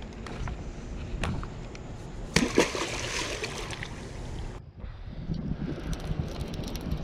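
A catfish on a rope stringer goes into the river with a loud splash about two seconds in, followed by water sloshing. After a sudden break, a few faint clicks come near the end.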